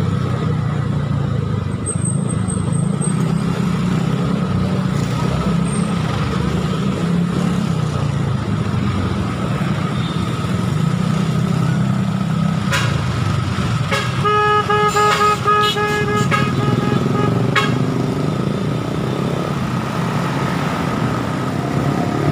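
Motorcycle engine and surrounding city traffic, a steady rumble from riding among many other motorcycles. About two-thirds of the way through, a vehicle horn honks in a quick run of short beeps for about three seconds.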